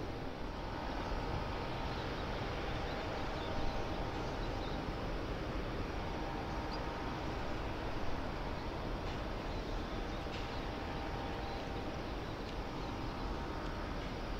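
Steady harbour ambience across open water: an even low rumble of distant ship and port machinery with a faint steady hum, and no single event standing out.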